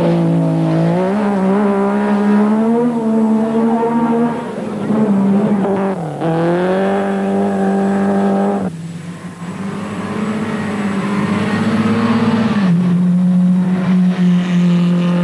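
Rally car engines running at high revs, the note rising and falling through the gears as the cars take a corner on a dirt stage. The sound changes abruptly several times from one car to the next.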